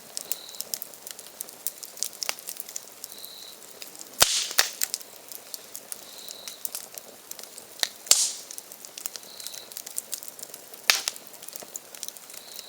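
Wood campfire crackling, with a steady scatter of small clicks and a few sharp pops as the firewood bursts, the loudest about four, eight and eleven seconds in.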